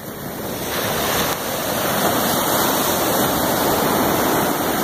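Ocean surf breaking and washing up a sand beach, a steady rushing noise that swells over the first second and then holds.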